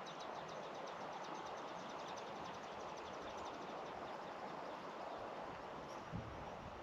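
Steady hiss of rain and wind on a tent. A fast run of faint high ticks, about eight a second, fades out over the first four seconds, and there is a soft low bump near the end.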